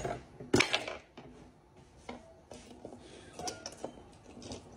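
Tableware clinking and knocking on a dining table, with one hard knock about half a second in, then light scattered taps and clicks.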